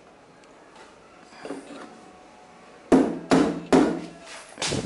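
A nail being hammered into the wooden keyboard stand: a quick run of sharp metal-on-nail strikes, about two or three a second, starting about three seconds in after faint handling knocks.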